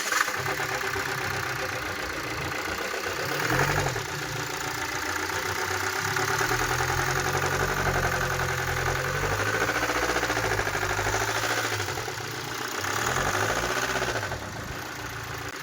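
BMW X1 four-cylinder diesel engine running just after starting, revved briefly about three seconds in and again near the end. It carries the engine noise that the mechanic traces to the connecting rod and crankshaft.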